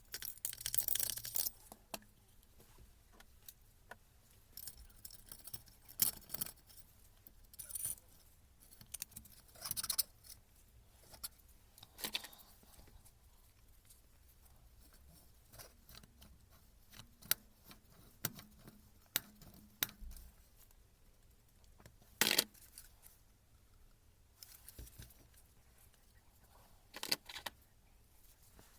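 Small metal parts and tools being handled during a rotary-hammer repair: irregular clicks, clinks and short scrapes, with a sharper knock about three quarters of the way through.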